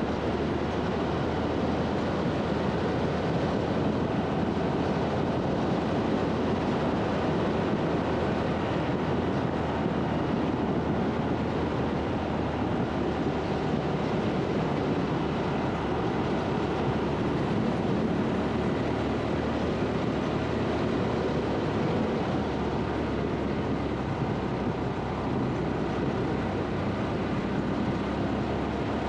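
Honda Super Cub's small single-cylinder engine running steadily at road speed, mixed with wind and tyre noise on the microphone.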